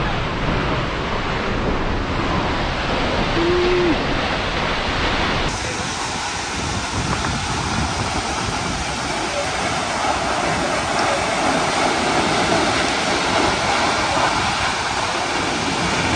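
Steady rush of fast whitewater from the falls and river. About five seconds in, it changes abruptly to a brighter hiss with less low rumble.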